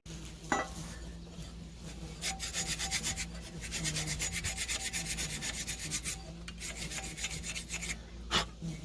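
Rapid back-and-forth scraping on a steel lawn mower blade, about five strokes a second for several seconds: the caked-on build-up is being cleaned off so the blade can be balanced.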